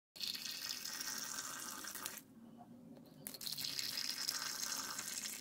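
Herbal soup poured in a thin stream into a glass cup, a splashing, filling sound. It stops about two seconds in and starts again a second later.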